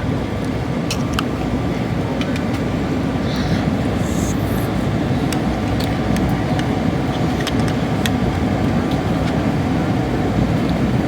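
Steady jet airliner cabin noise in flight, a low, even rumble of engines and airflow, with scattered light clicks.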